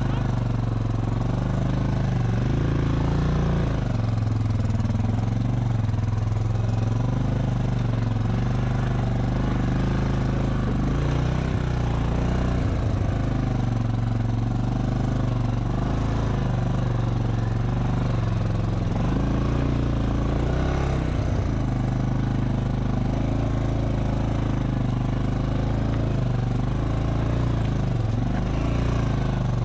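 ATV engine running steadily while the quad is ridden slowly along a rough trail.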